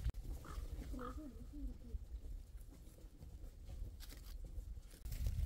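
A faint, wavering bleat from livestock about a second in. Near the end come a few short crunches of dry leaves underfoot.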